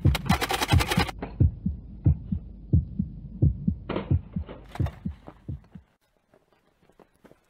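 Heartbeat sound effect: low paired thumps, two to three a second, that fade away and stop about six seconds in. A loud hiss lasts about a second at the start.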